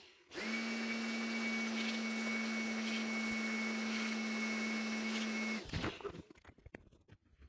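Handheld electric air blower running with a steady motor hum and whine over rushing air, blowing out a washed laptop cooling fan and its motor. It cuts out briefly at the start, comes back on about half a second in, and switches off about five and a half seconds in, leaving a few light handling clicks.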